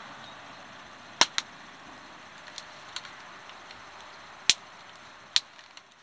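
Wood fire in a fire pit crackling: a handful of sharp pops, the loudest about a second in and again past the middle, over a steady hiss of the flames.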